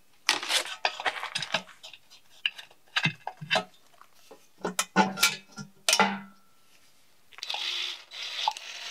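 Wrench and socket clinking and knocking against the steel engine mount bracket of a BMW M50B25 engine as its bolts are undone, with a short metallic ring at about six seconds. After a pause, a rustling scrape with a few clicks.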